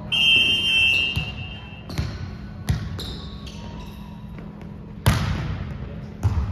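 Indoor volleyball play: a referee's whistle blast of about a second at the start, then a string of sharp ball hits, the loudest about five seconds in, with short sneaker squeaks on the court floor between them.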